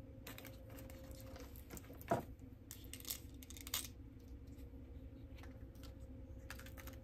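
Small items and packaging being handled: scattered light clicks, taps and rustles, the loudest click about two seconds in.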